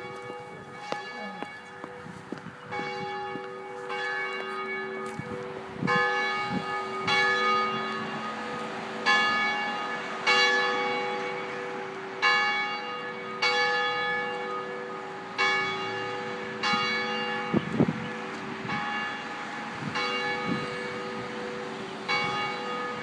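A large swinging church bell, rung by pulling its rope, tolling steadily: one stroke after another about every one to two seconds, each ringing on into the next. The strokes grow louder after the first few seconds and ease off slightly toward the end.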